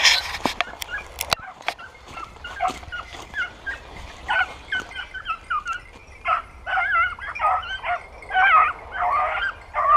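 Young hunting dogs, female pups of five and six months, yelping in short, high, wavering cries that come thicker and louder from about four seconds in. A brief rush of noise and a few sharp clicks come right at the start.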